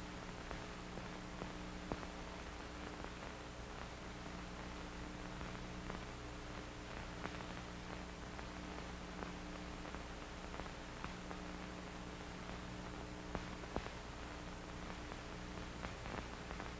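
Faint soundtrack noise of an old film print: a low steady hum and hiss with scattered faint clicks and crackle.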